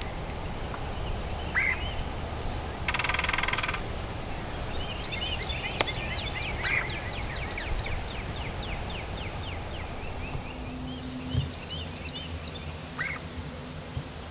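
Wild birds calling outdoors: a long run of quick, falling chirps, a few sharp single calls, and a short rapid buzzing trill about three seconds in, over a steady low rumble.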